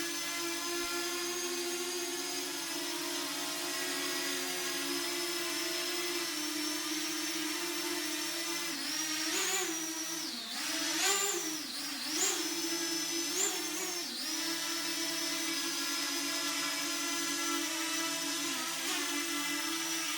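Parrot Anafi quadcopter's motors and propellers whining steadily while it hovers. Between about nine and fourteen seconds in, the pitch bends up and down several times as the rotor speeds change, then settles back to a steady whine.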